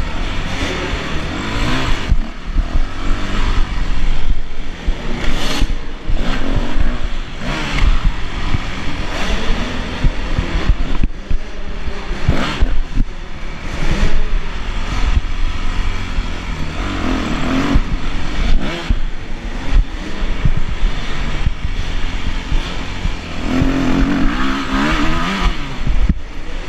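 Yamaha YZ250F four-stroke single-cylinder motocross engine revving up and down again and again as the bike is ridden hard, the throttle opening and closing through corners and straights. Sharp knocks and rattles from the bike come through here and there.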